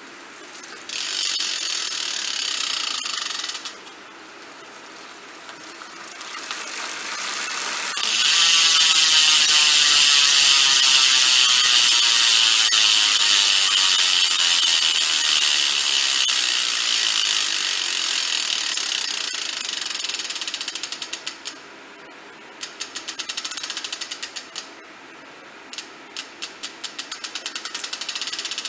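E*thirteen LG1+ rear bicycle hub freewheeling, its pawls ratcheting in a dense, high buzz. A short spin comes first. A longer spin starts about eight seconds in and slowly fades, then breaks into separate clicks that space out as the wheel slows.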